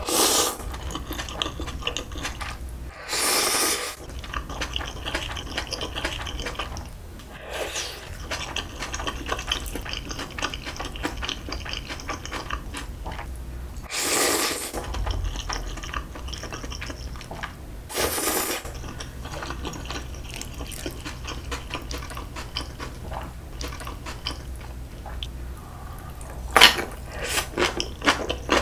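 Close-miked eating of curry ramyeon: several loud noodle slurps a few seconds apart, with wet chewing and mouth clicks in between, and a quicker run of slurps and clicks near the end.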